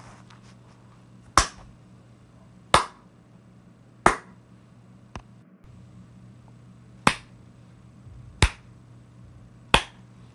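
Single sharp hand claps, six in all, in two groups of three about a second and a half apart with a pause between. Each clap has a short ring after it, over a faint steady hum.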